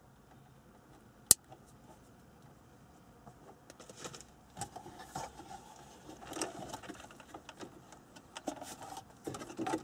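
A single sharp snip about a second in as side cutters clip the tail off a plastic zip tie on a car-radio wiring harness. Then a run of irregular small clicks and rustles as the wires and the metal radio chassis are handled and fed into the dash opening.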